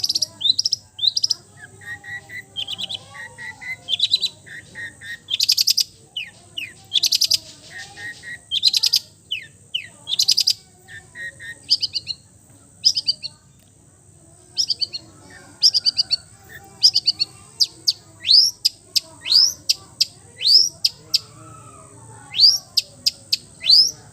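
Long-tailed shrike singing a varied, mimicry-packed song: rapid runs of repeated chirps, sharp down-slurred whistles and several harsh buzzy notes, going on throughout with only brief pauses.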